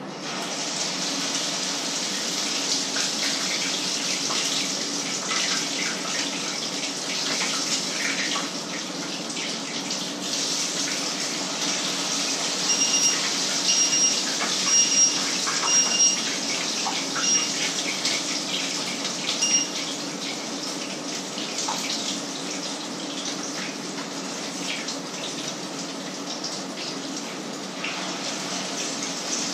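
Food sizzling in a frying pan on a stove hob, a steady hiss that starts suddenly. About halfway through, a series of about six short electronic beeps sounds over it.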